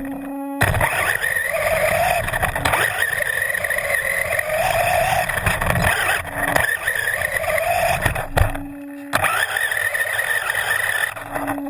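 Brushless electric motor and four-wheel-drive gear train of a Maverick Strada XB Evo S RC buggy whining, the pitch rising and falling with the throttle, over the noise of tyres churning loose sand, as heard from a camera bolted to the chassis. The whine drops out briefly twice, just after the start and about nine seconds in, leaving a steady low hum.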